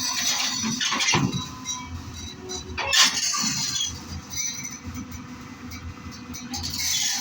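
Hyundai excavator running, with two sharp knocks about a second and three seconds in.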